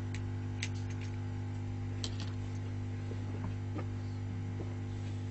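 Steady electrical hum with a few faint, short clicks, near the start and about two seconds in.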